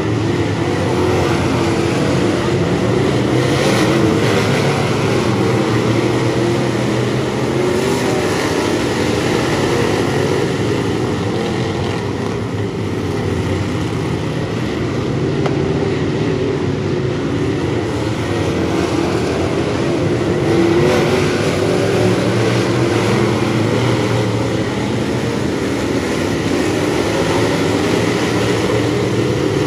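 A pack of Bomber-class stock cars racing on a dirt oval, their engines running hard together in a continuous loud drone that rises and falls a little as the field circles.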